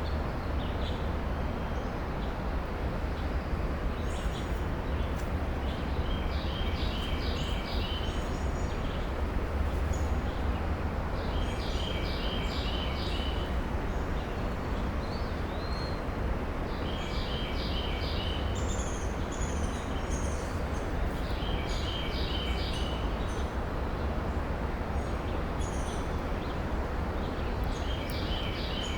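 A songbird singing the same short phrase of several quick notes, repeated about every five to six seconds, five times. Underneath it runs a steady low rumble.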